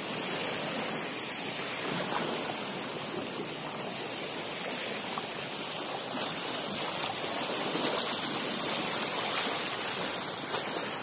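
Small choppy waves washing and splashing against the shoreline and driftwood logs, a steady rushing sound of water without distinct breaks.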